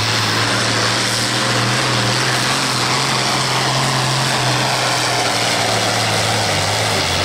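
International 1486 hot stock pulling tractor's turbocharged diesel engine running flat out under load as it drags the weight-transfer sled. It is a loud, steady drone, and its pitch sags slightly near the end.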